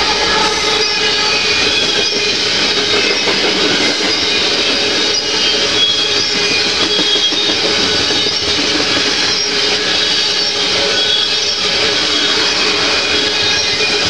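Freight train of loaded tank cars rolling past at close range: a steady, loud rumble and clatter of steel wheels on rail, with faint high-pitched squealing tones from the wheels coming and going.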